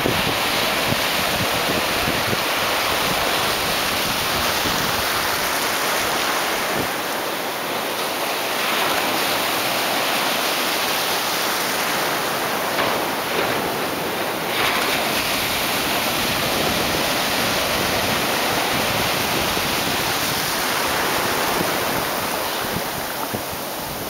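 Sea surf: small waves breaking and foaming through the shallows, a steady rushing wash of water that swells a little now and then.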